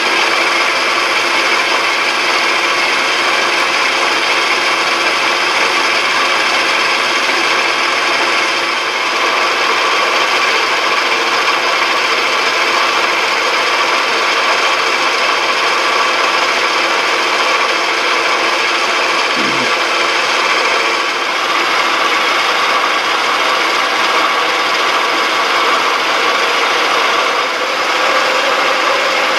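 1967 South Bend 13-inch lathe running steadily under power while a left-hand turning tool takes a cut along a metal shaft.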